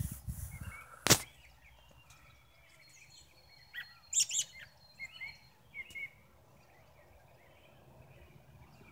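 Birds chirping now and then, a handful of short calls in the middle, with a single sharp click about a second in, the loudest sound here, and a few low thumps at the very start.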